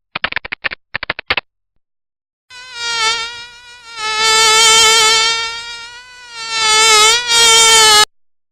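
A rapid run of short clicks, then, after a pause of about a second, a mosquito's whining buzz. The buzz wavers slightly in pitch and swells and fades as if the insect flies close past, then cuts off suddenly near the end.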